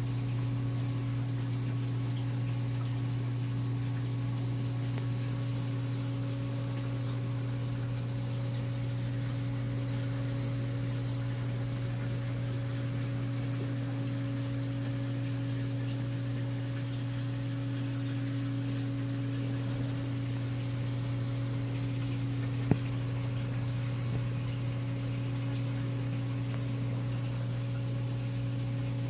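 Steady hum of reef aquarium pumps with water running, unchanging throughout. A single sharp click about three-quarters of the way through.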